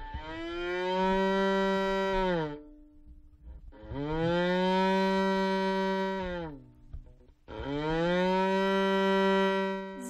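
Violin bowed in three long, low notes, each about two and a half seconds and each sliding down in pitch at its end: an imitation of a cow mooing.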